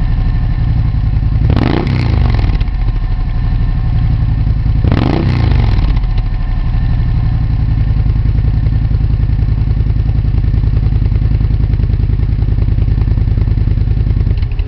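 Gilera GP800's V-twin engine idling through a LeoVince SBK slip-on silencer, with two quick throttle blips about two and five seconds in, each rising and falling back to idle. The sound cuts off suddenly just before the end.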